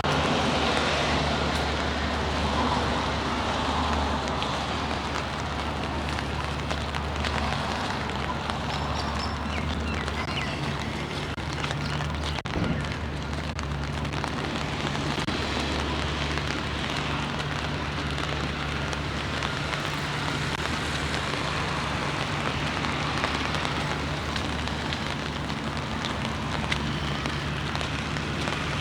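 Rain pattering steadily on an umbrella held overhead, a dense even hiss, with a low steady hum underneath.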